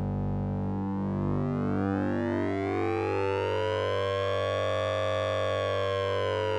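Synthesized electronic sound effect: a steady low drone under pulsing tones, with a siren-like upper layer that sweeps slowly up and then back down, peaking about five seconds in.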